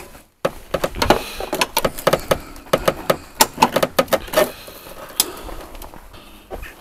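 Irregular clicks, knocks and rustles of hands handling the propped-open bonnet of a Citroën C4: the bonnet stay rod being set, then work inside the snow-covered engine bay.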